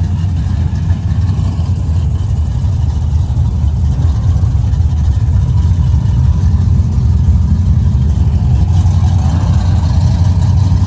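Car engine idling with a steady, loud low rumble.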